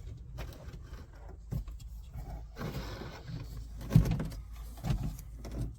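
Scattered clicks and knocks of plastic trim and cable connectors being handled and plugged together, over a steady low hum. The loudest knock comes about four seconds in.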